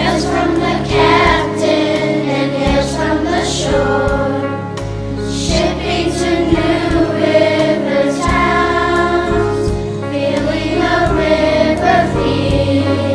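Music with a choir singing sustained, held notes.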